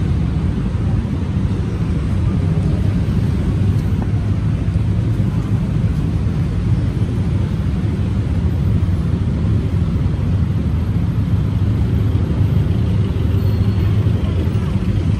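Steady city street traffic noise, a continuous low hum of engines and tyres without breaks or standout events.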